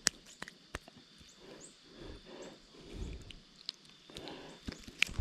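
A just-landed redbreast sunfish and the fishing tackle being handled: a few sharp clicks and taps with soft rustling in between, and faint short high chirps in the background.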